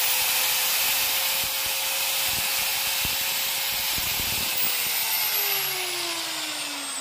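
Xtra Power 1114 5-inch (125 mm) marble cutter running free with no load at full speed, rated 11,500 rpm, a steady high whine. About four and a half seconds in it is switched off and the motor winds down, its pitch falling steadily.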